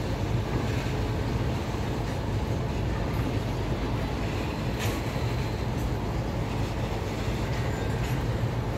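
Freight train of open goods wagons rolling past, a steady low rumble of wheels on the rails with a few faint clicks.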